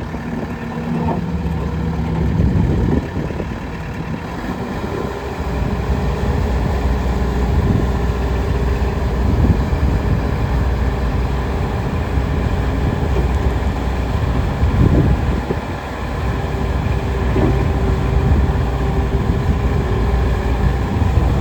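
Bobcat S650 skid steer loader's diesel engine running, its note shifting a few times, as when the throttle or the load changes.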